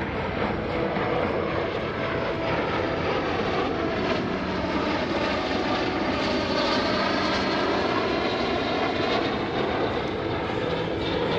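Two L-39C Albatross jet trainers pass in close formation, their turbofan engines giving a steady rushing jet whine. Around the middle of the pass the whine glides in pitch as they go by.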